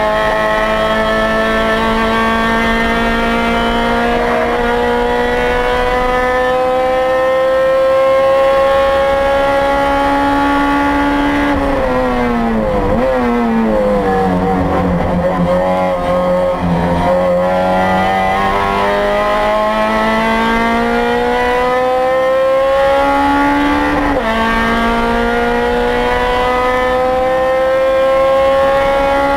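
2008 Honda Civic Si race car's four-cylinder engine heard from inside the cabin at full throttle, its revs climbing slowly. About twelve seconds in the revs fall and waver, stay low for a few seconds, then climb again, with an upshift about twenty-four seconds in before they rise once more.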